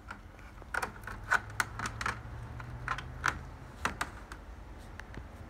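A calico cat's claws clicking and catching on a door's screen mesh as she climbs it: an irregular run of sharp ticks, thickest from about one to four seconds in.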